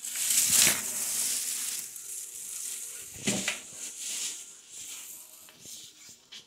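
Rustling and scraping noise from cloth rubbing close against the microphone as the camera is handled, with a louder bump about three seconds in.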